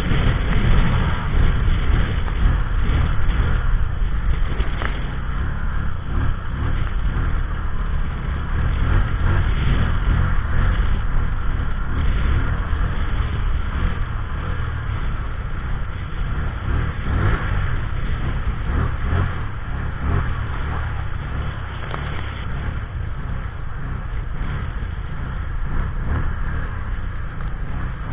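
Strong blizzard wind blowing across the microphone: a continuous low, gusting rumble with hiss above it.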